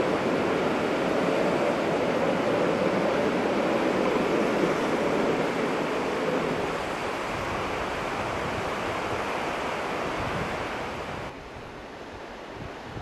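Rhaetian Railway passenger train rolling away over a stone viaduct: a steady rumble of wheels on track that fades after about six seconds as the last coaches pass. The sound drops suddenly near the end to a fainter hiss.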